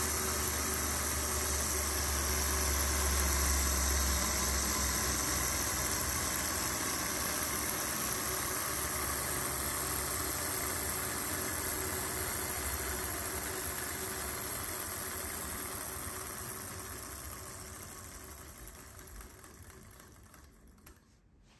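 Desktop 16-cylinder swashplate Stirling engine model running steadily, a continuous mechanical running sound from its pistons and swashplate. The sound fades away over the last few seconds.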